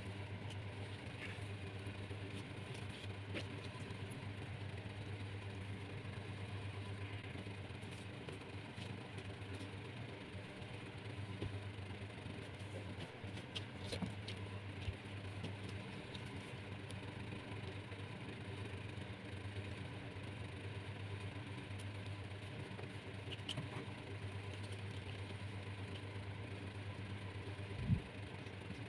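A steady low machine hum, with a few faint taps and clicks as bundles of bamboo skewers are handled on a table, and a sharper knock near the end.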